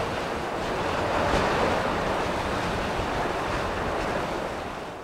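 A steady rush of wind, swelling slightly about a second in and fading out near the end.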